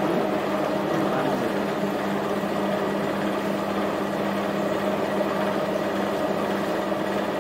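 Stainless-steel centrifugal spin dryer running at a steady speed, its motor and drum giving an even hum as it spins washed potato slices to throw off the water before frying.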